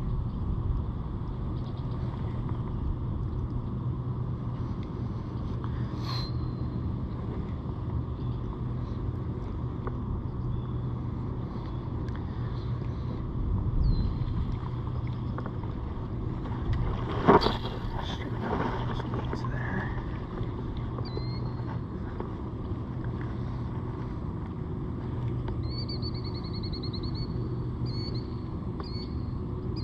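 Steady low outdoor rumble with a faint hum under it, with scattered birds chirping and a quick trill near the end; a single sharp knock or splash about 17 seconds in.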